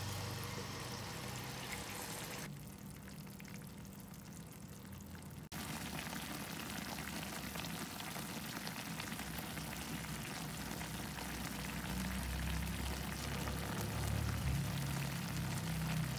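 Chicken stock simmering in a cast-iron skillet around browned chicken pieces and onions, a steady bubbling with crackling sizzle.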